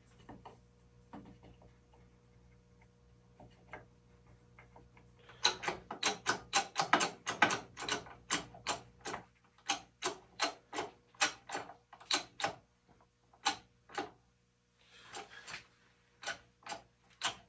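A run of sharp mechanical clicks from a hydraulic bottle jack being pumped by hand to raise its ram under a wooden shear-test fixture. The clicks come several a second at first and then slow to about one every half second.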